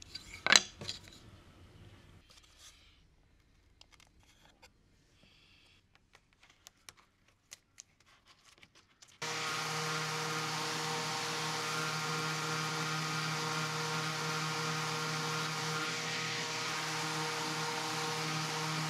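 An electric random orbit sander switches on about halfway through and runs steadily on a wooden frame, a constant hum with a hiss of abrasive. Before it there is a sharp wooden knock near the start, then faint scattered clicks and taps of small wood pieces being handled.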